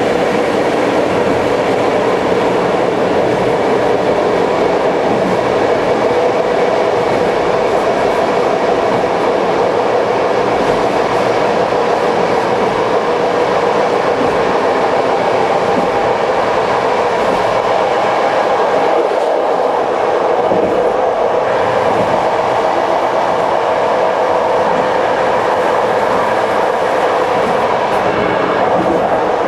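Locomotive-hauled TLK passenger train running steadily along the line, with a continuous rumble of wheels on rail, a steady hum, and some clickety-clack of the rail joints.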